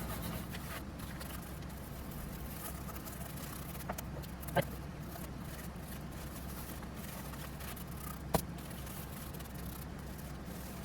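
Steady low background hum with a few short, sharp taps, the clearest about four and a half and eight seconds in.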